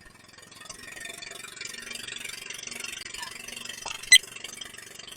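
Small fishing boat's engine running steadily, with a sharp knock about four seconds in.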